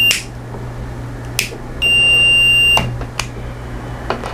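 Digital multimeter's continuity beeper sounding a steady high tone for about a second, starting shortly after a rocker switch is clicked on and stopping as it is clicked off. The beep shows that the switch closes the circuit when on. Sharp clicks of the switch come at the start, before the beep, as it stops and once more just after.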